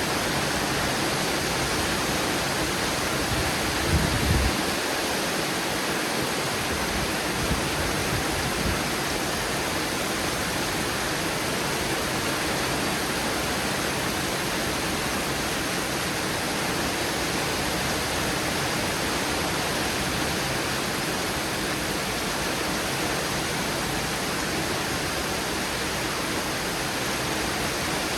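Heavy rain pouring down steadily in a thunderstorm, an even hiss throughout. About four seconds in there is a brief low thump.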